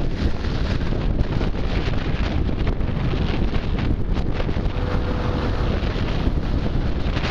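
Wind buffeting the microphone of a camera on a moving scooter: a steady, heavy low rush that covers any engine or tyre sound.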